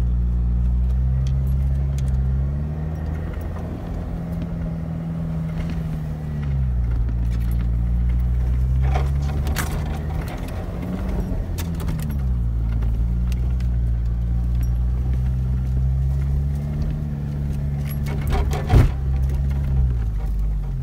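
Jeep Wrangler engine running under load, heard from inside the cabin, its pitch rising and falling several times as the throttle changes on the rough forest track. Rattles and knocks from the bouncing vehicle come through, with a sharp knock near the end.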